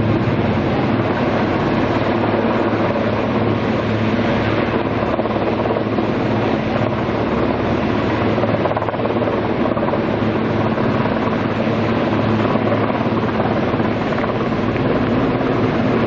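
Heavy-lift helicopter hovering overhead while carrying a slung load, its rotor and engine noise steady and continuous.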